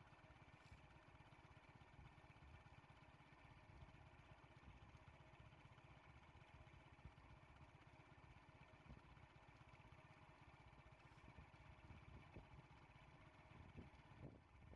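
Faint, steady idling of a small vehicle engine, mostly a low rumble.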